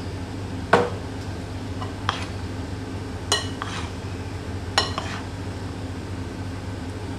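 A spoon clinking against a glass mixing bowl while potato sticks are stirred into gram-flour batter: four sharp clinks spread over a few seconds, the later two ringing, over a steady low hum.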